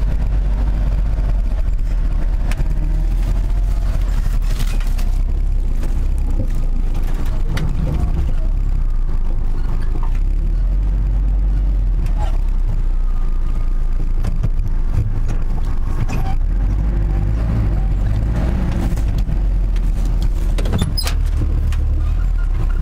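Steady, loud low rumble throughout, with faint voices at times and a few light clicks near the end.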